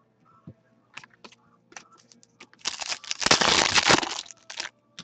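A foil trading-card pack being torn open by hand: a few light clicks of cards being handled, then about two seconds of loud crinkling and tearing of the foil wrapper just past the middle.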